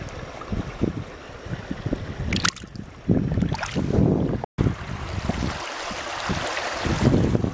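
Wind buffeting the microphone in low gusts, over the hiss and splash of water in a shallow rocky stream. The sound drops out for an instant about halfway through.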